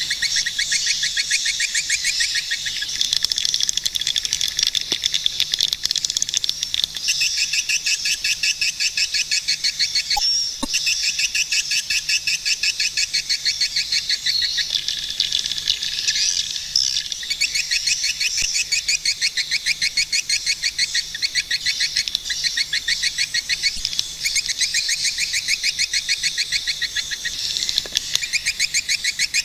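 Swiftlets calling: a continuous, rapid chittering of many high chirps a second, dense and unbroken.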